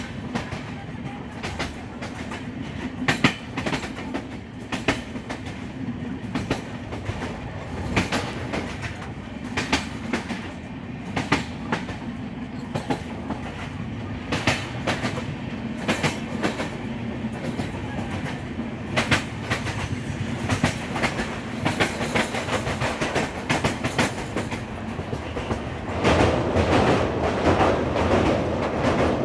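Train running on the line, its wheels clicking irregularly over rail joints above a steady low rumble. Near the end the sound steps up, louder and rougher.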